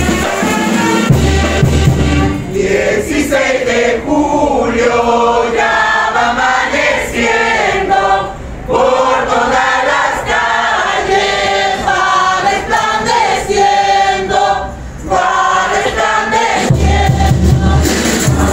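A group of religious-dance troupe members, mostly women, singing a hymn together, unaccompanied for most of the stretch. A drum beats for about the first two seconds and comes back in near the end.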